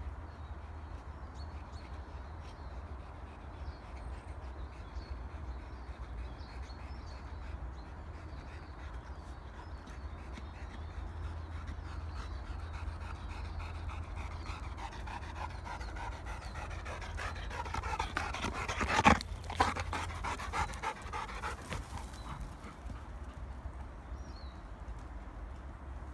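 Labrador retriever panting after a long run. The panting swells to its loudest a little past the middle, where there is one sharp knock, then fades again.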